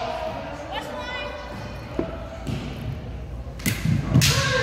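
Kendo fighters' kiai shouts, with a sharp bamboo shinai strike about two seconds in. Near the end comes a loud attack: a sharp strike and shout together with heavy thuds of a stamping foot on the wooden gym floor.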